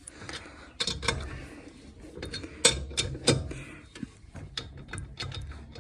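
Wheel nuts being run on and snugged with a spanner: a string of irregular metallic clicks and clinks of the tool on the nuts.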